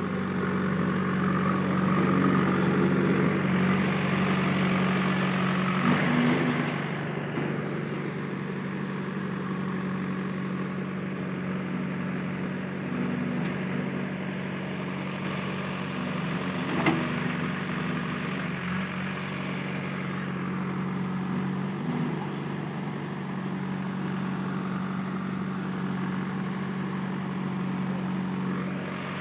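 JCB 3DX backhoe loader's diesel engine running steadily, louder for the first six seconds or so and then settling back. A single sharp click about 17 seconds in.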